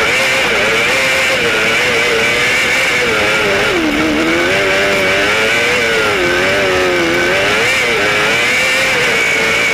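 Cross kart engine running hard around a dirt track, its pitch dropping and climbing again several times as the driver lifts off and accelerates through the corners, with a steady high whine above it.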